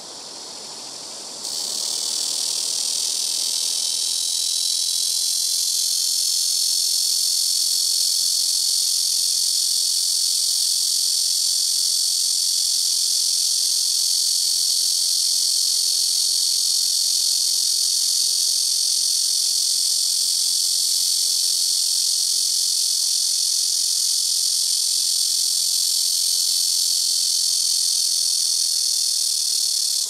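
Blackish cicada (Cryptotympana atrata) calling: a loud, high-pitched, steady buzzing drone that sets in abruptly about a second and a half in and then holds without a break.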